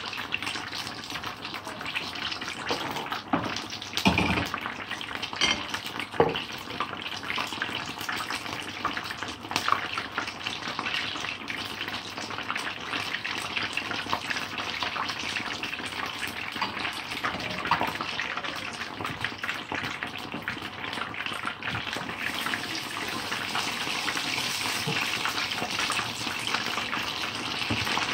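Battered fish pieces deep-frying in hot oil: a steady sizzle of fine crackling, with a few louder pops about four and six seconds in.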